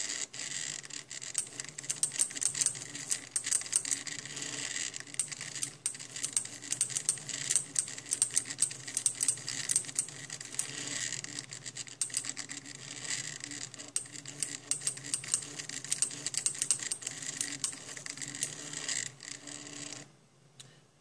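Homemade mini SCARA plotter arm running its stepper motors as it writes in pen, a steady whine with many quick clicks and ticks from the mechanism. It stops about a second before the end.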